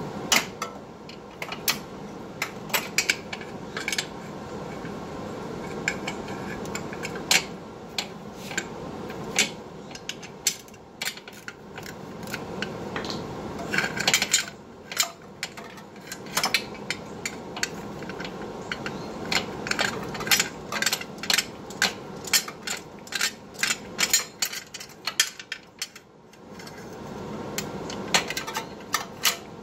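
Irregular metallic clicks and clinks of hand tools: a long extension with a ball-end Allen bit working loose the bolts of the axle heat shield under the car.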